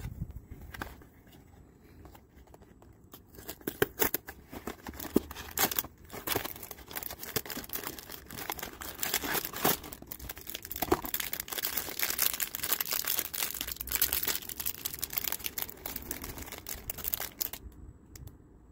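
Biscuit packaging being torn open and crinkled by hand: a dense run of crackles and rips that starts a few seconds in and stops shortly before the end.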